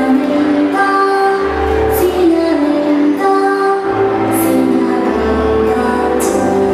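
A recorded children's song: a woman singing a melody over bass notes, with hissy high hits every second or two.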